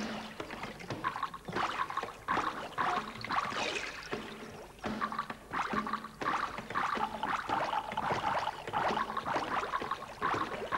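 Mechanism of a kinetic sculpture running, creaking and clattering in repeated bursts about twice a second, with short recurring squeaks.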